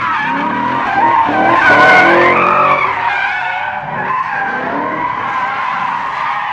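A car drifting on concrete, its tyres squealing in a long, wavering screech that is loudest about two seconds in, with the engine revving underneath.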